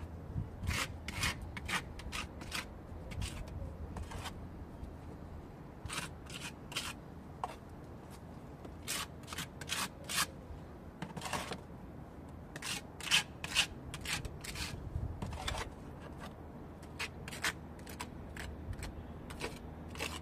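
Metal putty knife scraping plaster filler out of a plastic bowl and spreading it into holes in a rough concrete-block wall: short rasping scrapes, in irregular bunches.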